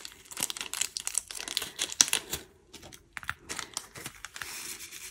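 Small plastic bag of diamond-painting drills crinkling as it is handled and opened, with quick irregular crackles and clicks.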